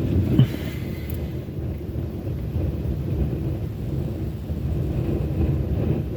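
Blizzard wind buffeting the microphone: a steady, gusting low rumble.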